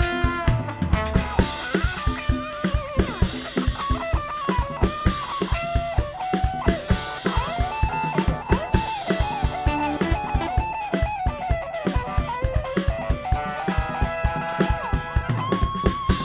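Live band music: electric guitar and bass guitar over a drum kit keeping a steady beat.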